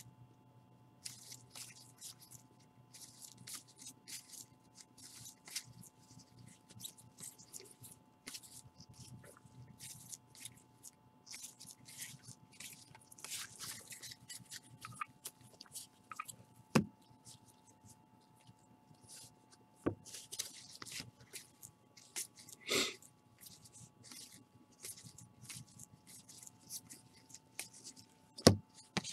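Baseball trading cards being shuffled and slid against one another by gloved hands, a run of soft rustles and card-on-card slides. A few sharper clicks stand out, one about two-thirds of the way in and another near the end.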